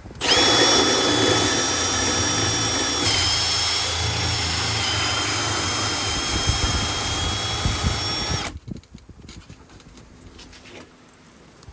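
Power drill boring the 54 mm knob hole through a door, running steadily with a high whine that drops slightly in pitch about three seconds in as the bit bites into the wood. It stops abruptly about eight and a half seconds in, before the hole is through.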